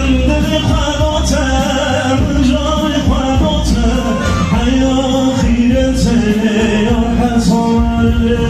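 Loud amplified live wedding music with singing.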